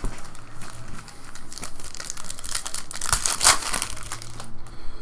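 Plastic wrapping of baseball card packs being torn open and crinkled in quick rustling bursts, loudest about three and a half seconds in.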